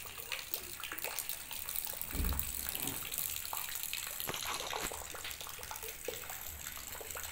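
Rain with a stream of water splashing into a full plastic tub, and many small drips ticking on wet concrete. A brief low thump comes about two seconds in.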